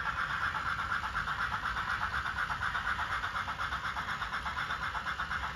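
N scale model Southern Pacific articulated steam locomotive running past with a long train: a thin, steady rhythmic sound, about five beats a second.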